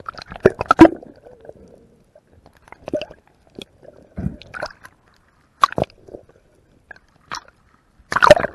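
Muffled underwater clicks and knocks picked up by a camera in a waterproof housing, coming irregularly: a quick cluster in the first second, a few single ones, and a louder cluster near the end.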